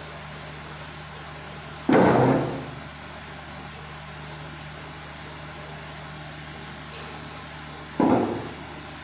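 Two loud wooden knocks, about six seconds apart, as heavy wooden furniture is moved and set down on a tiled floor, over a steady low hum.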